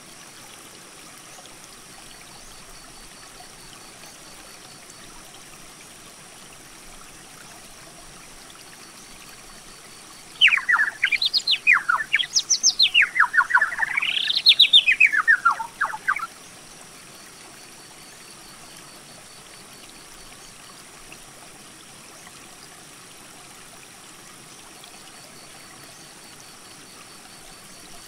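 A bird calling from about a third of the way in: a fast run of sharply rising and falling notes lasting about six seconds, then stopping. Under it, a creek runs steadily.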